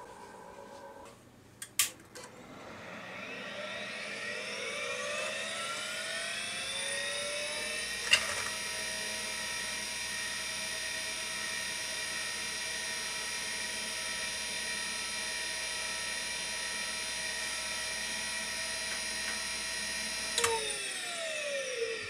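Vintage 5.25-inch MFM hard drive powered up with a click. Its spindle motor spins up with a whine rising in pitch over about six seconds, then runs at speed as a steady high whine, with a sharp click about eight seconds in. Near the end another click comes and the whine falls away as the platters spin down.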